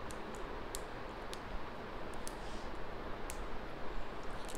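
Small clicks and light crinkles of plastic packaging being worked open by hand as a mascara is unboxed, scattered irregularly over a steady hiss.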